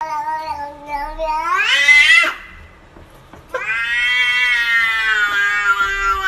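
Domestic cat yowling in two long, drawn-out meows. The first rises in pitch at its end. The second starts about a second after the first stops and is held for about three seconds, sagging slightly in pitch.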